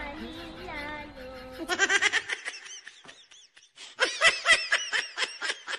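Background music ends about two seconds in and gives way to a laughter sound effect: quick rhythmic 'ha-ha' pulses in two rounds, the second louder, starting about four seconds in.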